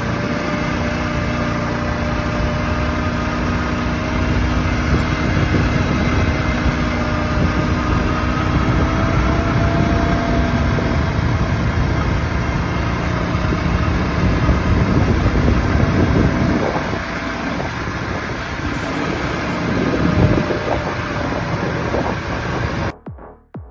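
Kawasaki Brute Force 650 four-wheeler's twin-cylinder engine running on the move, steady at first and then varying in pitch. Near the end it gives way abruptly to electronic dance music with a beat.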